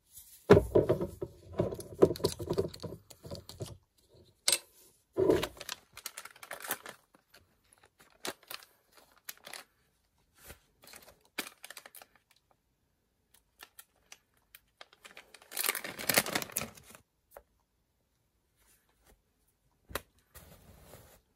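Cotton-gloved hands handling a small glass whisky bottle: a stretch of rubbing and crackling, then two knocks, scattered clicks, and another short burst of rubbing about two-thirds of the way through.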